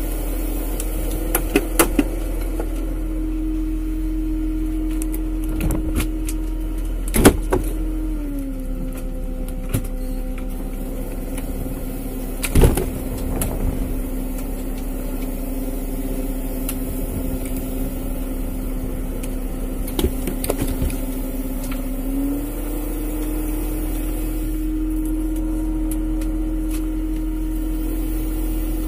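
A fishing boat's engine-driven hydraulic longline hauler running with a steady hum. Its pitch drops slightly about eight seconds in and rises back about twenty-two seconds in, as if the load changes. A few sharp knocks and clatters from the gear on deck are heard along the way.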